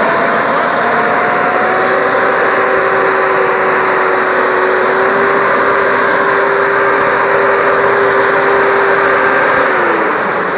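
New Holland 5610S tractor's diesel engine running as it pulls an air-blast orchard sprayer, with the sprayer's fan blowing: a loud, steady rush with a humming tone that drops in pitch near the end.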